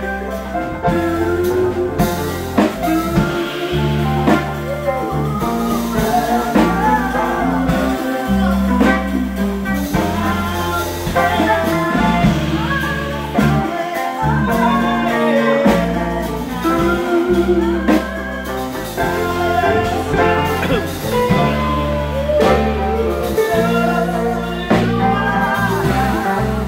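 A live band playing a song with a singer's voice over electric guitars, a drum kit and piano, with a steady low bass line underneath.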